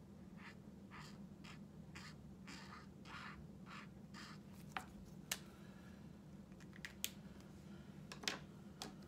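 Felt brush-tip marker (Tombow) scratching across cardstock in short back-and-forth strokes, about two a second. Partway through the strokes stop, followed by a few sharp clicks and taps as the pens are handled.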